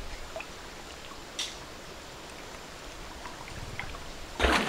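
Gentle stream ambience: a soft, steady trickle of water with a few faint ticks. Near the end, loud splashing of water suddenly begins.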